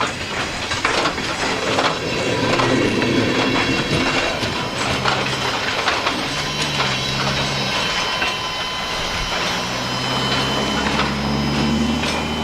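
Freight train cars rolling past, their wheels clicking and knocking over the rail joints in an uneven stream. A low steady hum joins in about five seconds in.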